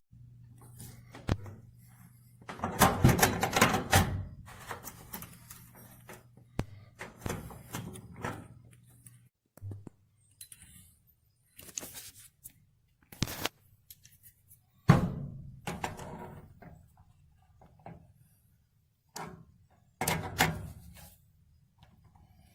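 Irregular knocks and thuds, the loudest cluster about three seconds in and another sharp one about fifteen seconds in, with a low steady hum that stops about nine and a half seconds in.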